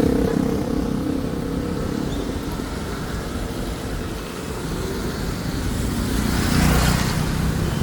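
Road traffic running close by: a steady engine rumble and hum at first, then a louder swell near the end as a vehicle passes.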